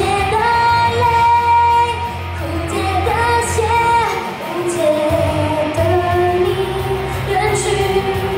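A woman singing a pop song live into a handheld microphone over a backing track, holding long notes over a steady bass line.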